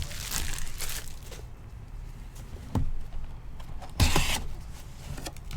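Trading cards and foil pack wrappers being handled: soft rustling and sliding, a single click a little before three seconds in, and a brief louder rustle about four seconds in.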